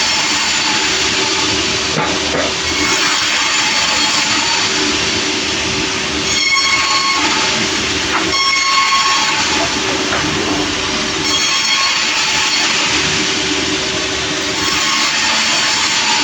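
Sawmill running as it cuts through a large log: a loud, steady mix of engine drone and blade noise, with a few brief high whines from the saw.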